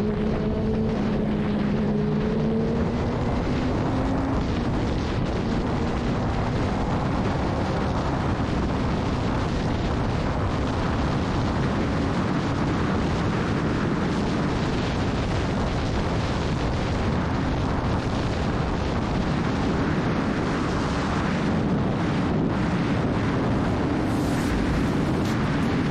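Yamaha R6 inline-four with an Akrapovič full exhaust pulling hard at highway speed. The engine note climbs slowly in pitch and is largely buried under heavy wind noise on the microphone.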